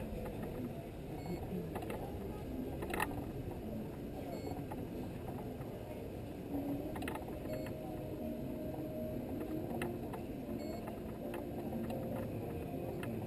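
Small vehicle moving slowly, a steady low rumble with occasional light clicks and rattles.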